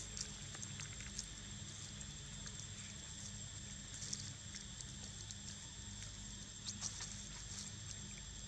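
Faint scattered crackles of dry leaves and soft clicks as a baby macaque handles and bites a piece of fruit, over a steady low hum and a thin high tone.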